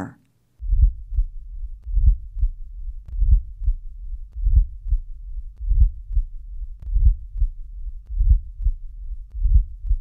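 Recorded heart sounds from a stethoscope held lightly with the bell, starting about half a second in and beating slowly, a little over a second apart. Each cycle carries a late diastolic murmur, a low-pitched rumbling in the latter half of diastole that runs up to the first heart sound. This murmur is usually part of mitral or tricuspid stenosis.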